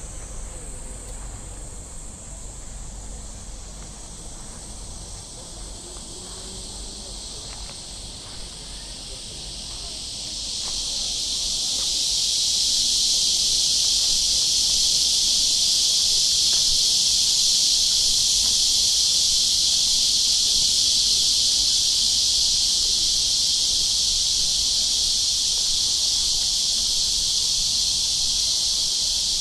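Cicadas buzzing in a steady summer chorus that swells much louder about ten seconds in and holds there.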